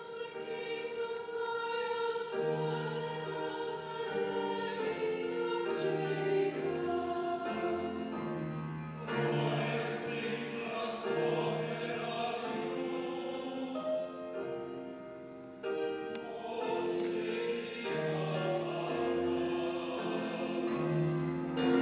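A choir singing a slow hymn in sustained, held notes, with a short dip a little past the middle before the singing carries on.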